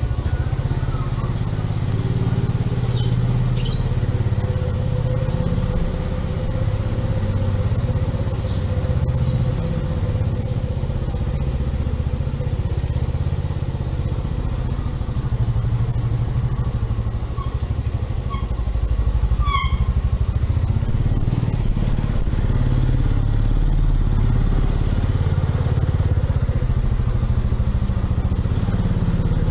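Motorcycle engine running steadily at low revs during a slow ride, a continuous low rumble. A short high-pitched chirp sounds briefly about two-thirds of the way in.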